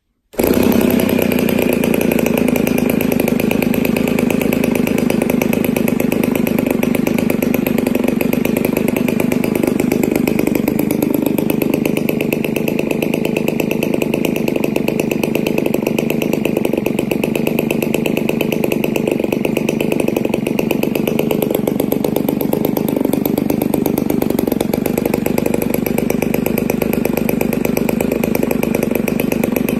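RCGF 20cc single-cylinder two-stroke gas engine with a 17x6 propeller, catching on a hand flip of the prop and then running steadily at idle.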